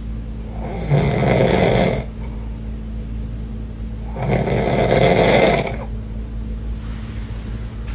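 A man snoring loudly: two long snores, each lasting about a second to a second and a half, a few seconds apart, over a steady low hum.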